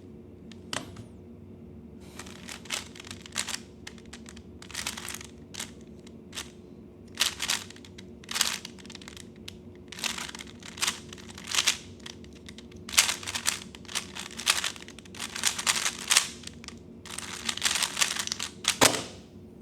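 Plastic 3x3 speedcube being turned fast during a timed solve: quick clusters of clicking turns broken by short pauses, running for about seventeen seconds and ending in one sharp knock near the end as the solve is finished.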